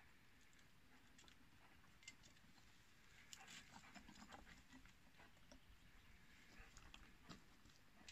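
Near silence with faint, scattered clicks and scrapes of footsteps over loose concrete rubble, growing more frequent from about two seconds in.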